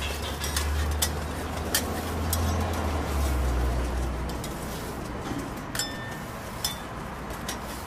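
Flat metal scrapers tapping and scraping on a round crepe griddle as an egg crepe is spread and turned: a handful of sharp metallic clicks, some with a brief ring, over a steady low hum that fades about halfway through.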